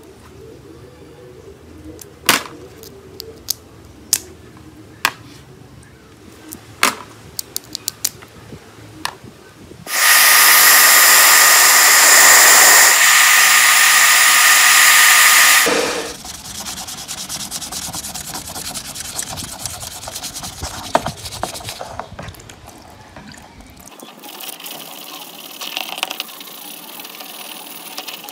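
Light sharp clicks of metal tweezers picking at a small motor's parts, then a Panasonic hand-held hair dryer blowing steadily and loudly for about six seconds before it cuts off suddenly. After it, hands rub and scrape at the plastic camera housing, the scraping getting hissier near the end.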